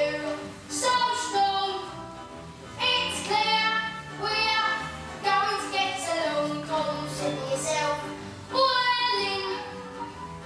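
A child singing a show tune in phrases with short breaks, with music accompanying.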